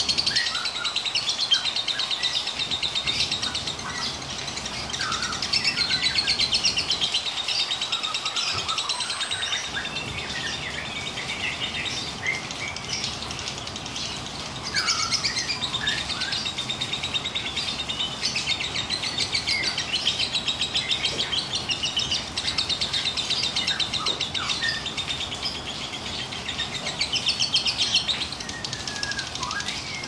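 Lovebird giving its long, very rapid rattling trill ('ngekek'), held for many seconds with only brief breaks, with short sharper chirps mixed in.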